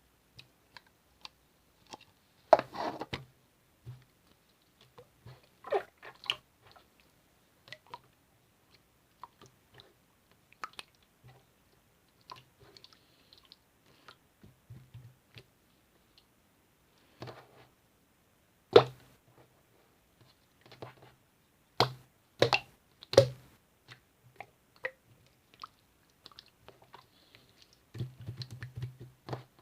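Chewing: scattered crunches and short clicks, with a few sharp, louder clicks in the second half.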